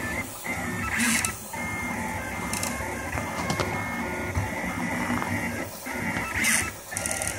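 Rostock Max delta 3D printer's stepper motors whining in shifting pitched tones as the print head moves through a print, with brief louder rushes about a second in and again near the end.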